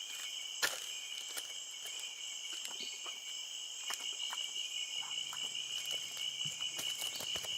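Steady rainforest insect chorus, crickets trilling in high continuous bands, with scattered faint clicks and a faint low hum in the second half.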